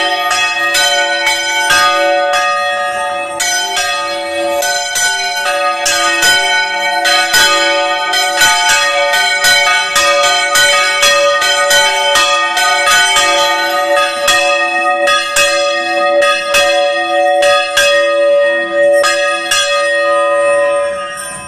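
Church bells in a portable frame rung by hand in a traditional Spanish manual toque, struck rapidly and continuously so the strokes overlap into one sustained peal. The ringing dies away at the very end.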